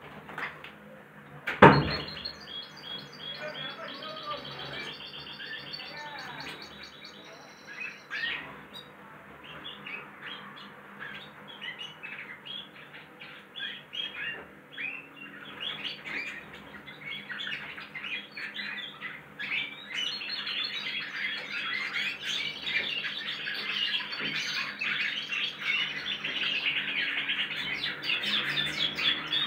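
Young goldfinch × canary hybrid finches practising their song: dense, rapid twittering and chirping that thickens and grows louder in the second half. A single sharp knock sounds about two seconds in, louder than the song.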